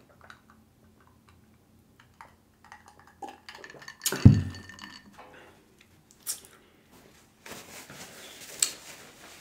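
Quiet sipping and swallowing from a glass of ice water, then a single heavy thump a little past four seconds in as the glass is set down on the table. Near the end, a paper napkin rustles as it is wiped across the mouth.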